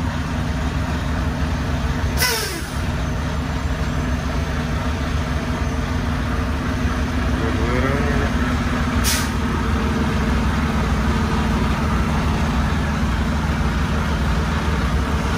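Semi-truck diesel engine running steadily while the truck is manoeuvred into a parking space, with two short air-brake hisses, about two seconds in and again about nine seconds in.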